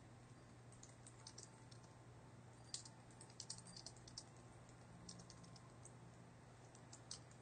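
Faint computer keyboard typing: scattered key clicks in short irregular runs, heaviest about three seconds in and again near the end, over a low steady hum.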